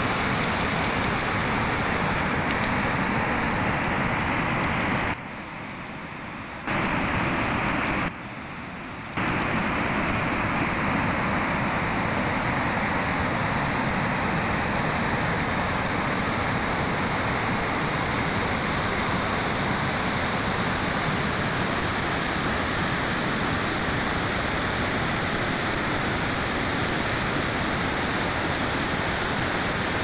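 Steady rushing of a full mountain creek tumbling over boulders in white-water rapids. The sound drops briefly quieter twice, about five and eight seconds in.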